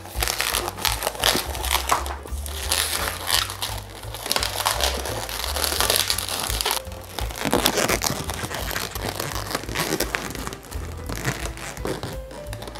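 Latex modeling balloon being twisted and rubbed in the hands, with irregular crinkling and rubbing as it is pulled tight around a clear PVC bubble balloon. Background music plays underneath.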